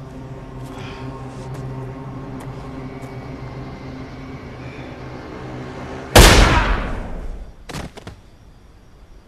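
A low steady drone, then about six seconds in a single loud pistol shot that rings out and fades over about a second, followed by a few faint clicks.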